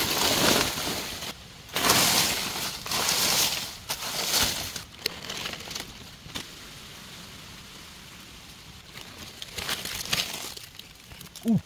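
Dry banana leaves and leaf litter being pulled aside and crumpled by hand, in several bursts of crackling rustle in the first four seconds and again around ten seconds in.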